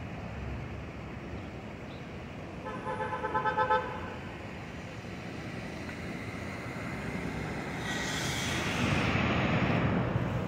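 A horn sounds in a quick run of short pulsing toots about three seconds in. Then an R142 subway train approaches on the elevated track, its noise swelling over the last few seconds.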